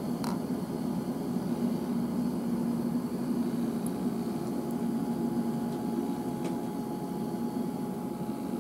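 Steady low machine hum with a faint hiss, a thin higher tone joining about halfway through, and a couple of faint ticks.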